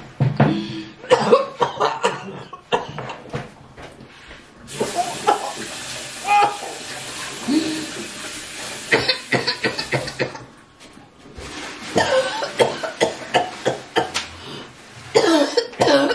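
A woman coughing hard and repeatedly, faked for a prank. From about five seconds in, a kitchen tap runs for about five seconds, and the coughing comes thicker again near the end.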